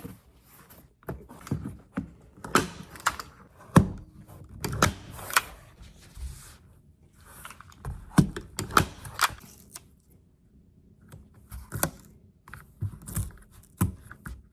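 Hands handling and fitting small hard objects: irregular clicks, taps and knocks with short rustles, pausing briefly about two-thirds of the way through.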